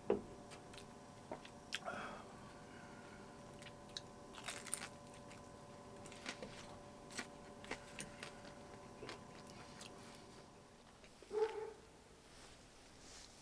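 Scattered light clicks and taps over a faint steady hum, with a brief louder sound near the end.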